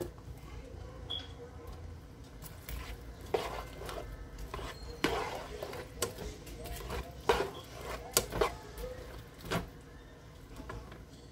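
Plastic spatula stirring onions and sofrito in a nonstick frying pan, with irregular scrapes and knocks against the pan.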